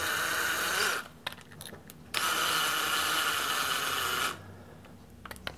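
Handheld cordless drill motor running in two short bursts, a steady whine, the first stopping about a second in and the second running from about two seconds in to past four seconds, with a few faint clicks between them.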